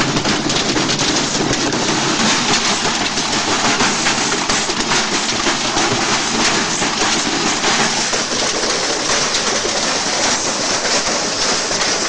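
Front-loading washing machine with a stone in its drum, running and tearing itself apart: a loud, continuous clatter and banging of the loaded drum and loose metal casing.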